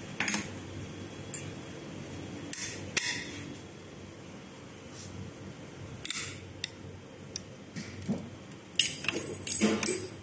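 Hard plastic socket housings clicking and knocking as they are handled on and set into a screw-machine fixture board: scattered sharp clicks, then a quick run of clattering knocks near the end. A faint steady high tone runs underneath.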